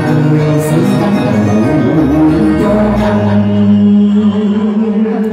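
A singer performing live into a microphone over instrumental backing music, the melody gliding between notes and then settling on one long held note over the second half.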